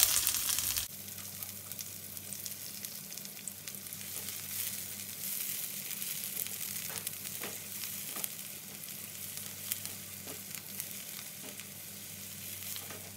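Sliced garlic and shallots frying in hot oil in a pan. There is a loud sizzle at the start, then steady sizzling with scattered light clicks from stirring.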